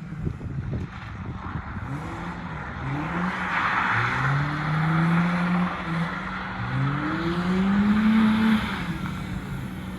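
BMW 318i four-cylinder engine accelerating through the gears. The revs rise in several pulls, each falling back at a shift, with the longest climb near the end.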